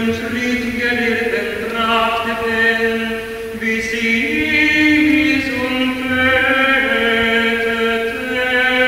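An a cappella chamber choir holds steady chords while a tenor chants the Evangelist's narration in German on a changing line above them. About four seconds in, the lower held note steps up.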